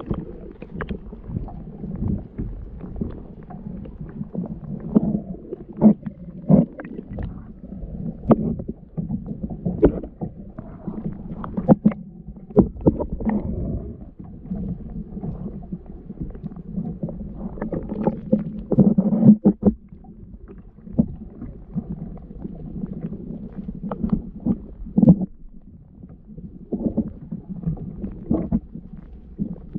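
Water washing and slapping against a fishing kayak's hull, a steady low rumble, with irregular knocks and clunks on the hull throughout.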